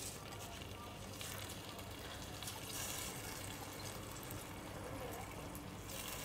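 Wet, soaked rice sliding out of a glass bowl into a pot of simmering coconut-milk gravy, a soft hissing rush that is strongest from about one to three and a half seconds in, then fingers scraping the last grains from the bowl.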